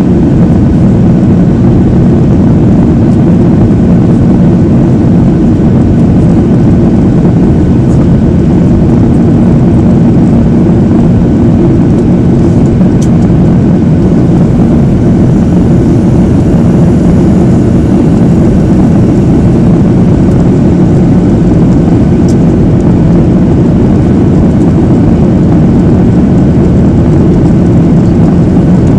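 Steady cabin noise inside a Boeing 737-700 in flight: the low rush of its CFM56-7B jet engines and the air streaming past the fuselage, with a steady low hum running through it.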